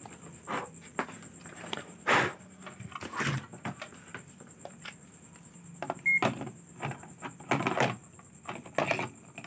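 Irregular knocks, clicks and clatters of a multimeter and tools being handled over a TV circuit board, with several louder clatters spread through, over a faint steady high-pitched tone.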